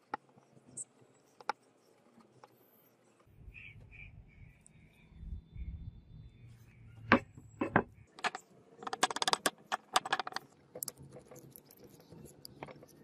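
Handling noise as wooden katana handle pieces and paper are worked on a wooden bench: scattered knocks and clicks, with a quick run of rattling clicks about nine seconds in.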